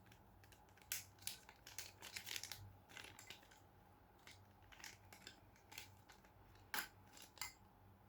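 Faint, scattered snips, clicks and crinkles of plastic packaging being handled and cut open, with a few sharper clicks near the end.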